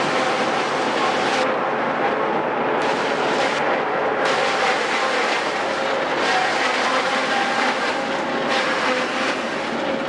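JF 92 Z10 trailed forage harvester and its tractor running steadily while chopping maize, a dense continuous mechanical noise of cutter, blower and engine under load.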